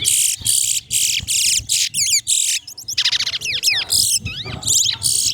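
Two caged towa-towas (large-billed seed finches) singing against each other in a song race, giving short, high, rapidly warbled phrases one after another with only brief gaps between them.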